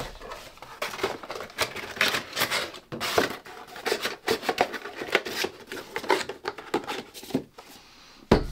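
Cardboard packaging and plastic being handled and shifted, a busy run of irregular rustles, crinkles and light knocks. Near the end the box is set down on the table with a single heavy thump.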